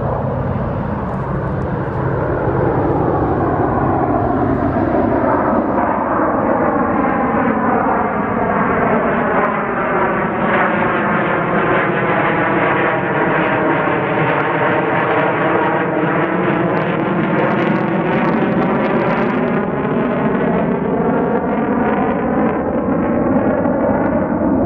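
Military jet flying low overhead: a loud, continuous jet engine roar with a sweeping, phasing tone that sinks and then rises again as the aircraft passes.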